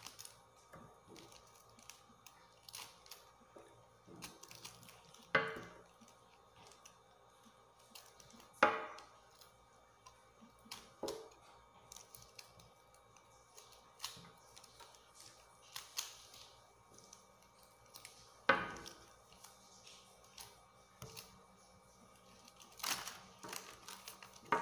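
Kitchen knife paring the base of a pineapple crown: scattered quiet crackling cuts and scraping with rustling of the stiff leaves, broken by a few sharper cracks spaced several seconds apart.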